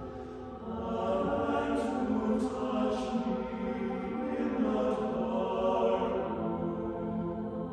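Mixed chamber choir singing sustained chords in a reverberant stone church. The sound swells up about a second in, with hissing 's' consonants cutting through a few times.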